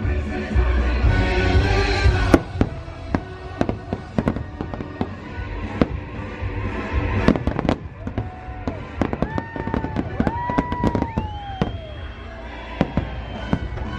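Aerial fireworks bursting in a dense run of sharp bangs and crackles. Show music plays for about the first two seconds and then stops. Between about eight and twelve seconds in, a few whistling tones rise and fall over the bangs.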